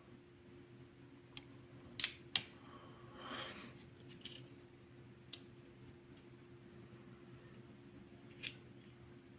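A handful of sharp metal clicks from a Leatherman Charge multitool being handled, its parts pivoting and snapping into place, with a brief scrape about three seconds in.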